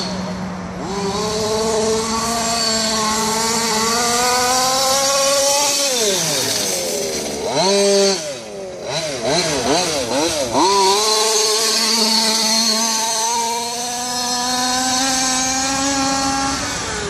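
Small two-stroke petrol engine (G290RC, 29cc) of a Losi 5ive 1/5-scale RC truck running under throttle as it drives. Its pitch climbs steadily for about five seconds and then falls off. Around the middle it is revved quickly up and down before it climbs and holds again, dropping away near the end.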